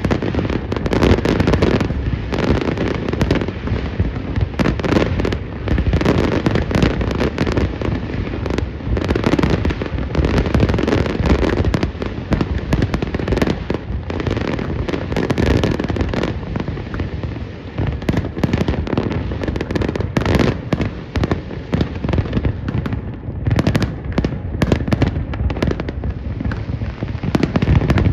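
Fireworks display: a continuous barrage of bursting shells with booms, bangs and crackling, many a second.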